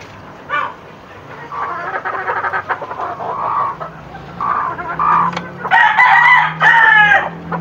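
Chickens clucking in short calls, then, near the end, a rooster crowing loudly in one long call broken into two parts.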